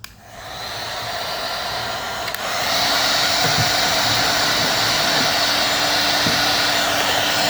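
Electric hot-air tool, most likely a heat gun, switched on and blowing steadily while old varnish is stripped from mahogany galley fronts. It builds up over the first half second and gets louder about two and a half seconds in.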